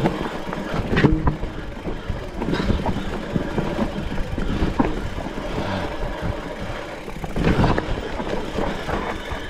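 Electric mountain bike riding over rough, rutted ground: steady tyre rumble and rattling, with sharp knocks from the bike about one second in, at a few points in the middle and again near the end.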